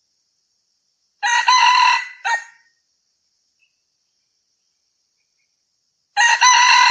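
Red junglefowl rooster crowing: a short crow about a second in that ends in a clipped final note, and a second crow starting near the end.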